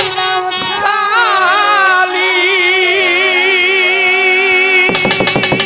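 Bengali Baul folk song with several singers and accompaniment: long held notes with vibrato while the drums drop out, then hand drums come back in with a fast, steady beat near the end.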